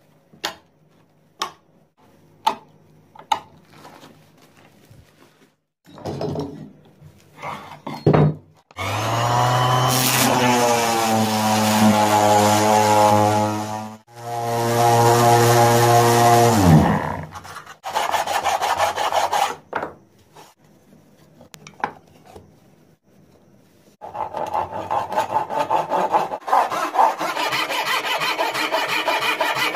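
An electric motor spins up, runs for a few seconds and winds down, twice, after a few sharp clicks. Near the end a belt sander runs steadily, grinding the edges of small stacked plywood pieces pressed against its belt.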